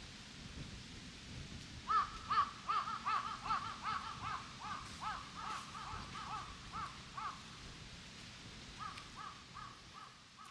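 A crow cawing in quick runs of short, arched caws, about three a second, for some five seconds, then a shorter run near the end.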